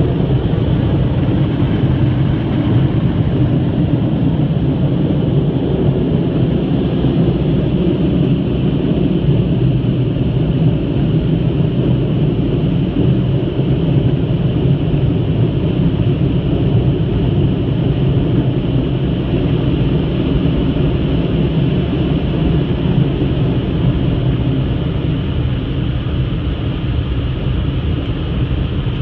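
Car wash air-dryer blowers running steadily, a loud, unbroken roar heard from inside the car while the drying cycle counts down.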